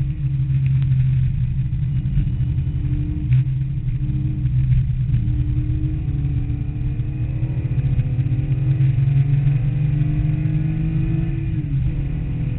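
Air-cooled 3.2-litre flat-six of a 1974 Porsche 911 pulling hard on track, heard from inside the cockpit. The engine note climbs steadily for several seconds, then drops abruptly near the end.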